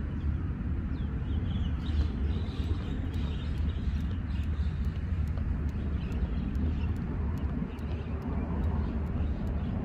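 A jump rope ticking against rock in an even rhythm, about two strikes a second. Underneath is a steady low rumble of wind on the microphone.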